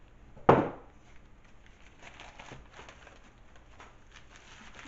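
A single sharp thump about half a second in, then faint crinkling and tearing of brown paper gift wrapping as a present is unwrapped.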